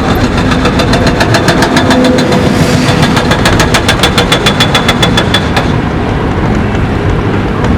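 Loud, steady rumble like a running motor vehicle. Over it comes a rapid, even clicking of about seven or eight clicks a second, which runs for about five seconds and then stops.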